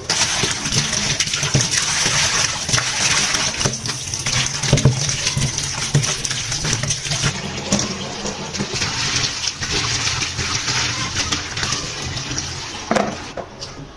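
Kitchen tap running into a plastic bowl of water in a stainless steel sink, with splashing and sloshing as hands rub and rinse small fish and later cut vegetable pieces.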